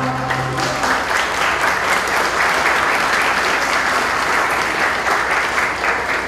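Audience applauding a choir, with the choir's last held chord dying away under the clapping within the first second.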